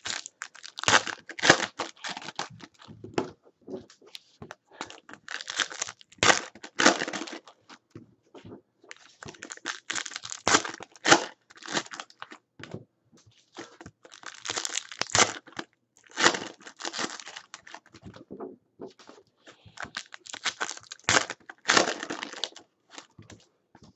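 Foil wrappers of Panini Prizm basketball card packs being torn open and crinkled by hand, in irregular bursts of crackling with short pauses between packs.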